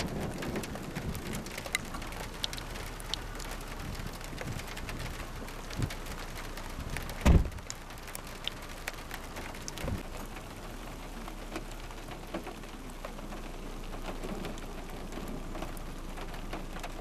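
Scattered raindrops ticking over a faint steady outdoor background, with a dull thump about seven seconds in.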